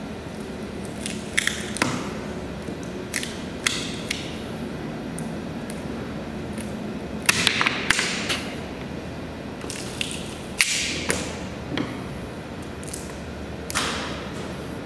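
Flathead screwdriver prying machined HDPE plastic parts up off a taped spoilboard: irregular sharp clicks, scrapes and snaps as the pieces pop loose, over a steady low hum.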